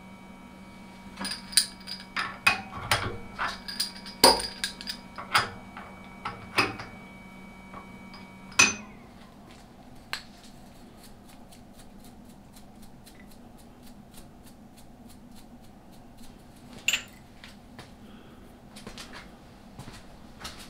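Metal tools and parts clinking and knocking against each other, about a dozen sharp ringing taps in the first nine seconds over a steady low machine hum. After that come only occasional faint clicks, with one louder tap near the end.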